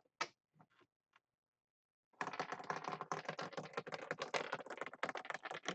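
A dropped chip clattering down a drop board: a dense run of rapid clicks starting about two seconds in and lasting about three and a half seconds, then stopping suddenly. A few faint clicks come before it.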